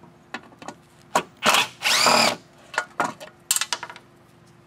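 A cordless drill-driver runs in three short spins, its whine rising and falling, as it backs out the screws that hold the carburetor to the mower's fuel tank. A few light clicks of screws and tool follow.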